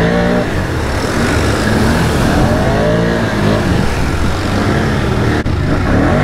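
ATV engine revving, its pitch rising and falling several times as the quad is ridden hard, with a brief break near the end.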